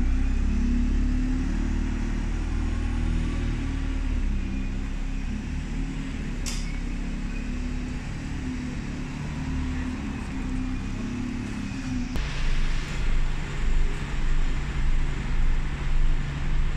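Diesel bus engines idling with a low rumble, and a brief hiss about six and a half seconds in. From about twelve seconds the engine sound changes to a steadier low hum that swells and fades about once a second as a double-decker bus moves up.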